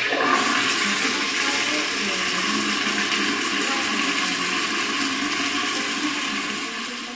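Flush-valve toilet flushing: a steady rush of water pouring and swirling into the bowl, easing off near the end.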